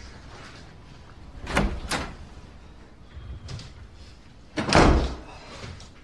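A door: two short clacks about a second and a half in, then a louder, longer thud near five seconds, as of the door being shut.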